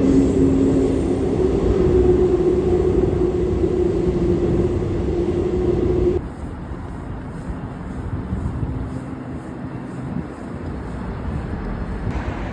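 Subway train running: wheel and track noise under a steady motor hum. About six seconds in, the sound drops suddenly to a quieter, steadier rumble.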